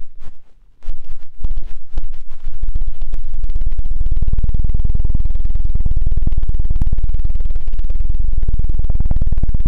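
Hand strokes worked rapidly over a binaural microphone's ears, giving the ASMR 'helicopter' effect: a fast, even low thumping flutter like rotor blades. It starts as scattered strokes about a second in and settles into a continuous beat soon after.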